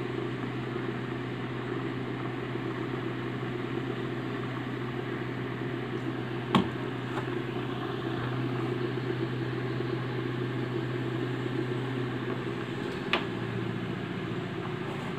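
Small 5-volt DC motor from an old CD drive running steadily as it spins a belt-driven pulley: a steady whirring hum. Two sharp clicks come about halfway through and again near the end.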